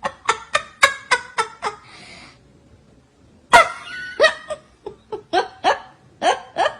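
Two runs of short, rapid vocal bursts, about four a second, the second run starting about three and a half seconds in.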